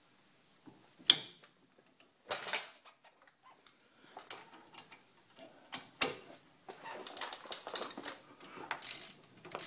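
Sharp metallic clicks and knocks of tools being handled against the brake caliper. Near the end comes a denser run of quick ticks: a socket ratchet clicking as the caliper guide-pin bolt is wound in.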